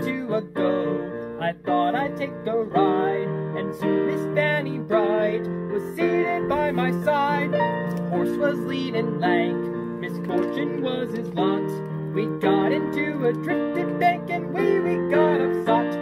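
Digital piano playing a lively Christmas tune, with a steady stream of chords and melody notes.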